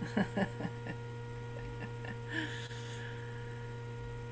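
Steady electrical mains hum with several thin, steady whining tones on a video-call audio line. A few short, faint voice sounds come in the first second, and a brief soft breathy noise comes about halfway.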